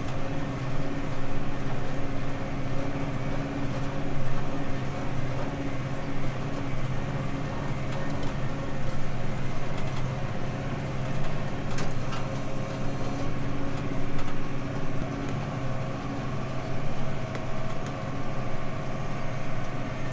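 Massey Ferguson tractor engine running steadily under load, heard from inside the cab, as it tows a forage wagon picking up cut grass for silage.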